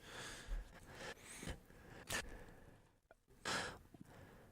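A person's breaths and sighs into a close microphone, with no words; the loudest breath comes about three and a half seconds in.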